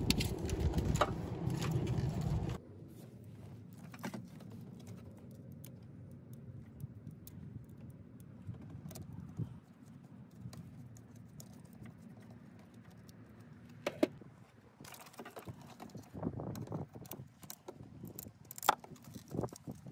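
Hand tools on a car's fuse box: scattered small metal clicks and rattles as a 10 mm socket, first on a driver handle and then on a ratchet, screws down the terminal of a bolt-in main fuse. Rustling handling noise for the first couple of seconds, one sharp click about two-thirds of the way through, then quicker runs of clicks near the end.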